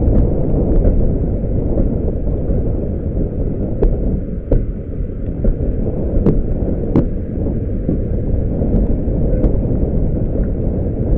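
Wind buffeting the microphone over the steady rumble of a steam-hauled passenger train running at speed, with a few sharp clicks scattered through it.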